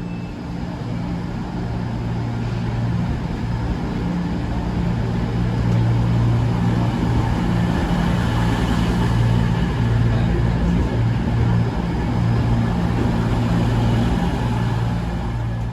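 Diesel train engines running with a steady low drone, growing louder over the first few seconds and then holding steady.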